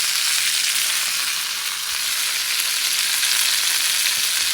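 Food frying in hot oil in a pan, a steady loud sizzle with scattered small crackles and pops of spattering oil.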